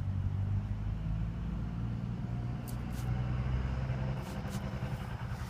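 Hand-held trigger spray bottle squirting sugar water onto a package of bees: four short hissing squirts in two quick pairs, the first pair about two and a half seconds in and the second near the end. Under them runs a steady low rumble.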